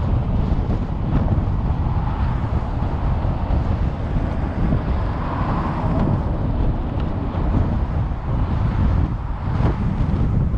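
Road and wind noise from a car driving along a paved highway: a steady low rumble.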